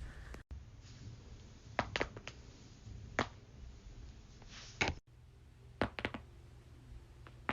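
Joints cracking: a series of sharp, short pops, some in quick runs of two or three, with the loudest about two-thirds of the way through, over a low room rumble.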